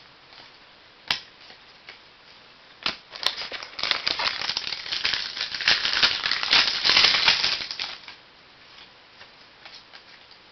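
Trading cards and their packaging being handled: a couple of sharp clicks, then a dense crackling rattle and rustle for about four seconds that stops abruptly.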